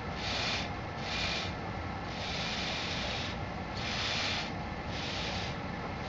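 Breath hissing in repeated puffs, one every second or so with a longer one about two seconds in, as a person blows by mouth into the tube on an airspeed indicator's pitot inlet. The breath pressure inflates the copper aneroid capsule, simulating pitot pressure so the needle rises.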